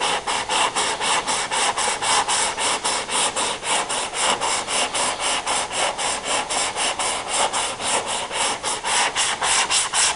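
Sandpaper on a flexible foam sanding block being rubbed back and forth by hand over auto body filler, a fast, even rasping of about five strokes a second that stops abruptly at the end. This is rough sanding to bring the filler down to the body line.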